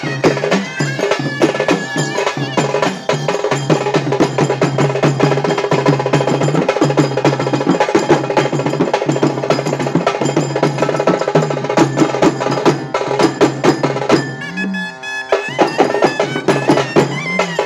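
Traditional festival percussion music: fast, dense drumming and struck percussion over a steady low pitched tone. The drumming drops off for about a second near the end, then resumes.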